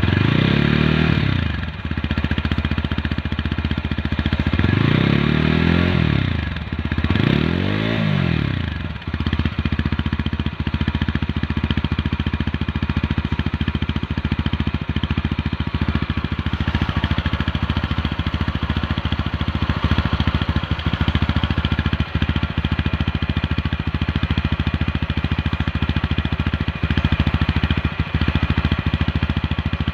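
TVS Apache RTR 160 4V's single-cylinder engine heard through its double-barrel exhaust: a rev dies away, the throttle is blipped up and down twice more, and about nine seconds in it settles into a steady, bassy idle.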